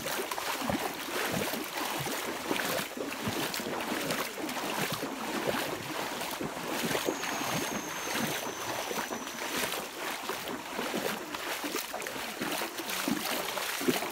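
Footsteps wading through a shallow, stony stream, with irregular splashing and sloshing of water at each step. A thin high whistling tone is held for about three seconds midway.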